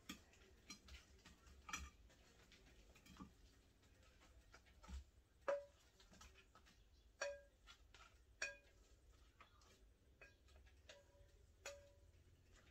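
Metal spoon clinking and scraping against a frying pan while prawns are served out. The clinks are light and scattered, several of them ringing briefly.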